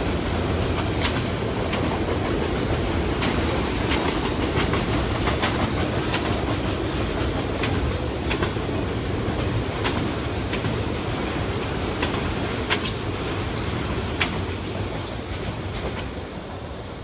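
Freight train of enclosed autorack cars rolling by: a steady rumble of steel wheels on rail with repeated clickety-clack clicks. It fades near the end as the last car passes.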